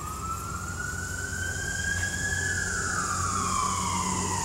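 Siren wailing: one tone slowly rises for about two seconds, falls for about two, and starts rising again near the end.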